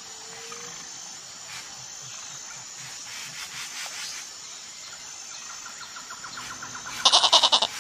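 A lamb bleats once near the end, a short wavering call, after several seconds of faint outdoor background.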